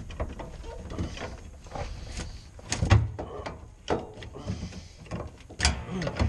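Irregular knocks, clicks and clatter of hard parts being handled, with a heavy thump about three seconds in and another near the end.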